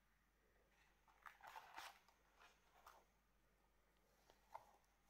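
Faint handling noise of a cardboard DigiBook being paged through: a rustling scrape of the card pages a little over a second in, a couple of softer rustles after it, and a single light click near the end.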